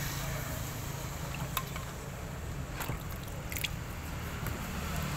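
Plastic scrub brush scrubbing a stainless steel part of a coconut milk pressing machine in a basin of water, with water sloshing and a few sharp clicks of the brush or metal. A steady low hum runs underneath.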